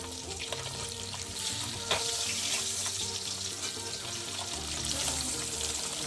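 Pieces of rui fish sizzling as they fry in hot oil in a kadai, with a single sharp knock about two seconds in, over background music.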